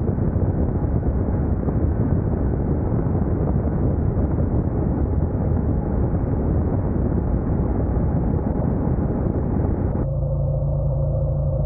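Wind rush on the camera microphone and road noise from a Honda NC750X DCT motorcycle on the move. About ten seconds in, the wind noise drops away and a steady low hum takes over.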